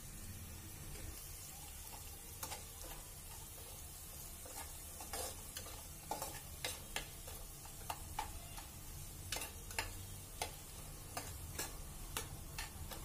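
A steel spoon stirring chopped onions frying in oil in a pressure cooker, scraping and clicking irregularly against the pot. The clicks come more often from about five seconds in, over a soft sizzle.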